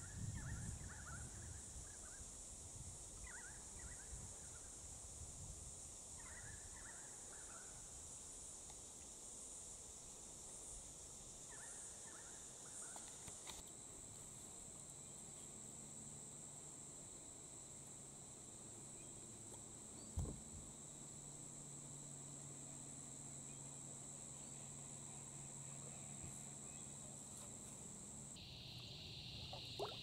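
Cicadas droning in a steady high-pitched chorus, with a few short bird chirps in the first half. Near the end the drone drops to a lower, louder buzz.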